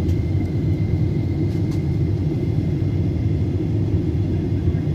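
Steady low rumble of a passenger airplane in flight, heard from inside the cabin: engine and airflow noise, with a faint high steady whine above it.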